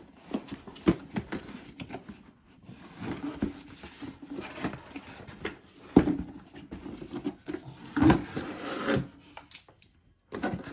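Unboxing noises: cardboard and plastic packaging rustling, with scattered knocks and clicks as the wall charger and its packing are handled, the loudest knocks about six and eight seconds in.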